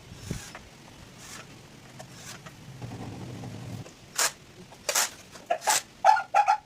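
A series of short knocks, clicks and scrapes, sparse at first and louder and more frequent in the second half, with a brief ringing clink near the end.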